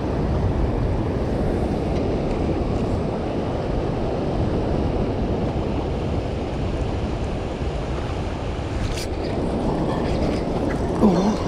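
Steady rushing of turbulent tailwater churning out below a hydroelectric dam with its generators running, mixed with wind on the microphone. A short louder sound comes near the end.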